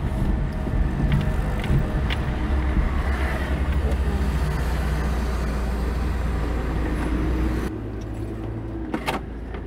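Engine and road noise inside a moving car's cabin: a steady low rumble that drops to a quieter hum about eight seconds in. One sharp click near the end.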